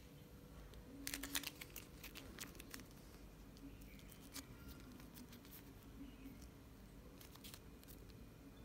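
Faint crinkling and ticking of a paper liner as a soft steamed bun is lifted off it and handled. There is a cluster of small sharp clicks about a second in and a few more near the end.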